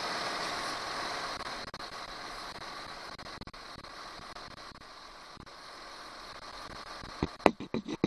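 Steady hiss of R134a refrigerant flowing from a charging can through the hose into the car's low-side AC port, slowly fading. Several sharp knocks come near the end.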